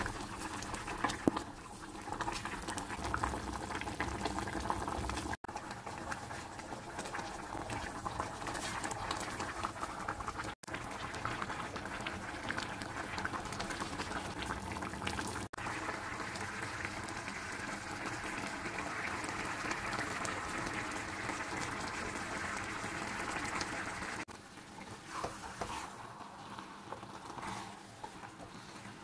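Tomato-based chicken broth bubbling at a boil in a stainless steel pot, with a wooden spoon stirring through it and one sharp knock about a second in. Near the end the bubbling gives way to quieter stirring of the rice as the liquid is absorbed.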